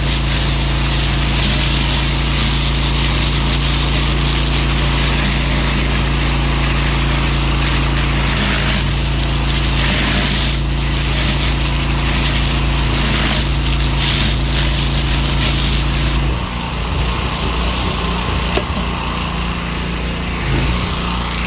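Pressure washer running with a steady motor note under a broad spray hiss. About 16 seconds in, the steady note breaks off into a rougher, uneven rumble.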